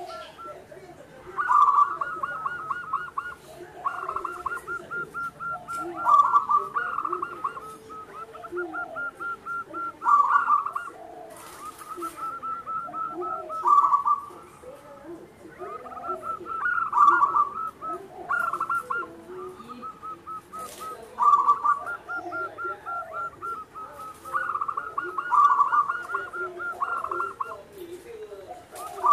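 Zebra dove (perkutut) cooing: repeated phrases of rapid staccato trilled notes, with a louder burst every few seconds.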